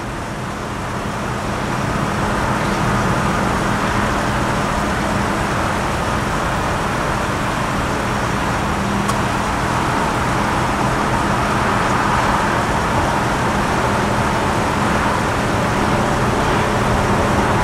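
Norfolk Southern train rolling past: a steady, loud rumble with a low, even engine hum throughout.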